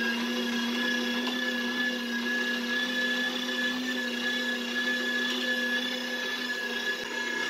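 Electric meat grinder motor running steadily: an even hum with a high whine over it.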